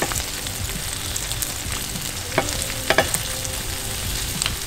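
Spanish sardines and cigar minnows sizzling steadily in olive oil in a nonstick frying pan. A few sharp clicks of metal tongs against the pan and fish come as the whole fish are turned, the clearest about two and a half and three seconds in.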